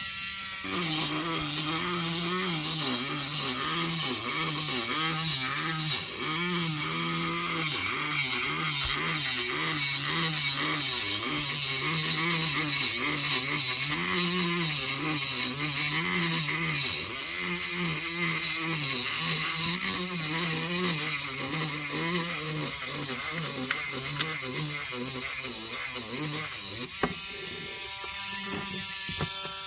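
Small motor or power tool running steadily with a buzzing hum, its pitch dropping and recovering over and over every second or two, as if the load keeps changing. The upper part of the sound changes near the end.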